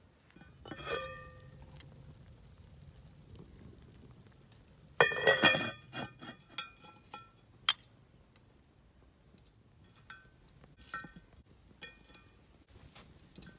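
Clinks and clanks from the enamelled cast-iron lid of a potjie pot. A single ringing clink about a second in is followed by a louder burst of clattering at about five seconds as the lid is seated, then lighter clicks of metal tongs setting hot coals on the lid.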